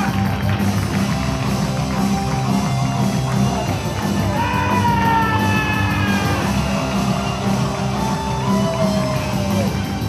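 Rock music with a singing voice and guitar, playing steadily and loudly.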